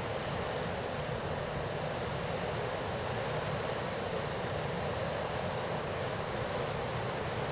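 Hurricane wind buffeting the microphone over the steady rush of rough surf breaking on a rock jetty.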